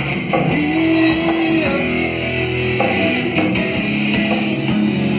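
A band plays an instrumental passage between sung lines, with guitar prominent.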